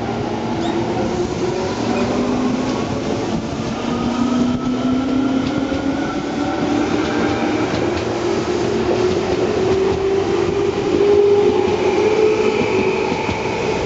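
Tobu 10030 series electric multiple unit accelerating away from a station. Its traction motors whine in a slowly rising pitch over the running noise of the cars, with some wheel clatter on the rails.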